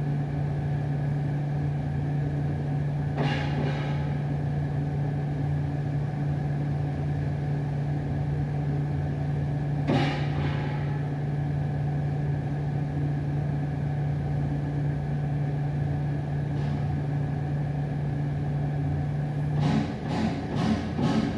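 Thuds and bangs from a neighbouring unit over a steady low hum: single knocks about 3 and 10 seconds in, the second the loudest. Near the end the hum cuts off and a rapid run of banging starts.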